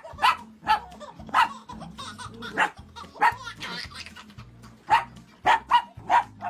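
A dog barking repeatedly: about a dozen short barks, some in quick pairs, roughly two a second.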